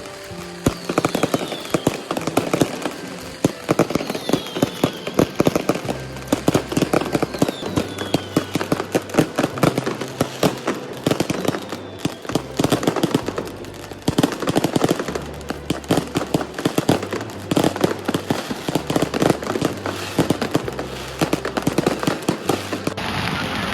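Fireworks going off in a dense, rapid barrage of crackling bangs, with a few falling whistles in the first few seconds. About a second before the end the crackling gives way to an even hiss.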